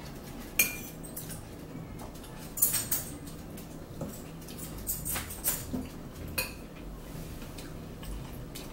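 A metal fork clinking and scraping against a dinner bowl and plates during eating: sharp clinks, some with a short ring, one about half a second in, a quick cluster around three seconds, and several more between five and six and a half seconds.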